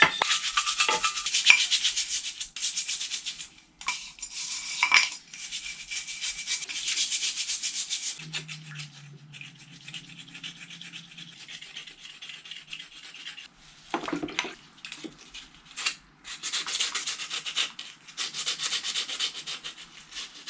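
Abrasive scrubbing strokes of rust being cleaned off a part, coming in bursts with short pauses. A brief low hum sounds about eight seconds in.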